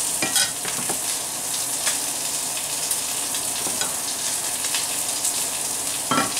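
Breaded fish pieces frying in hot oil in a pan, a steady sizzle, with a few light knocks of a wooden spoon scooping rice from a pot.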